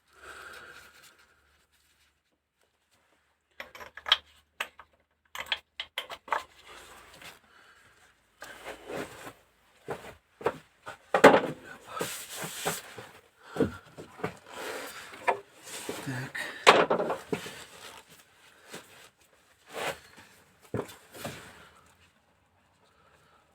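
Irregular clicks, knocks and scraping of metal engine parts being handled and worked on the bench, busiest in the second half.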